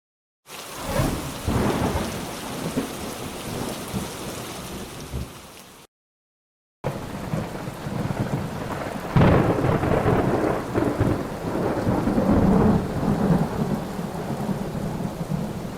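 Thunderstorm: heavy rain with rumbling thunder. It starts about half a second in, cuts out to dead silence for about a second near six seconds, then returns with louder, rolling thunder in the second half.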